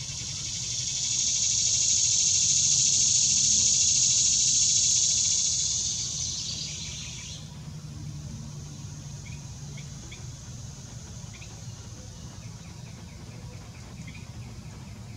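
Loud insect buzzing that swells over the first two seconds, holds steady, then fades away about seven seconds in. After it, faint short chirps sound over a low steady hum.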